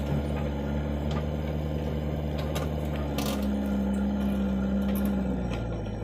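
Diesel engine of a JCB 3DX backhoe loader running steadily as it dumps soil into a tractor trolley and swings its arm back, with a few faint clicks. About three seconds in, a steadier, stronger hum joins the engine note.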